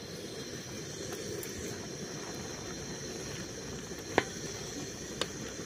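Pot of noodles boiling in masala broth, a steady bubbling. Near the end, a wooden spatula knocks twice against the metal pot, about a second apart.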